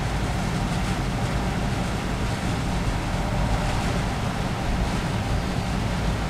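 Wind noise on the camera's microphone: a steady, low, rumbling hiss with no separate events.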